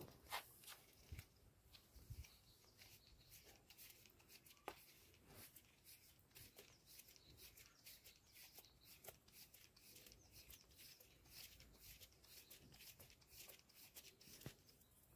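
Near silence with faint crinkling and small clicks as PTFE thread seal tape is pulled off its roll and wound onto the threads of a pipe fitting.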